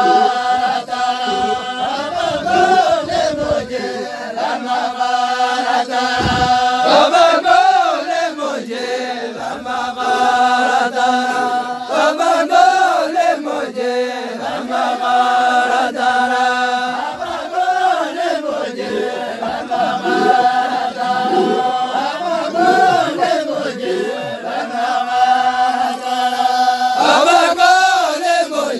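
A group of voices chanting together in repeating phrases, with a steady held note running beneath shorter rising and falling lines.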